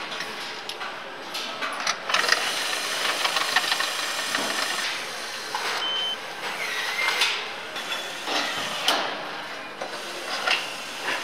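Car assembly-line noise: a steady machinery hiss with many scattered clicks and clanks of parts and tools, and short whirring runs of a cordless power tool fastening suspension and brake parts.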